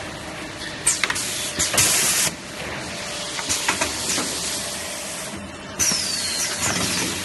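Semi-automatic kitchen towel roll packing machine running: sharp clicks and clacks from its mechanism, a short hiss about two seconds in, and a high falling squeal near the end.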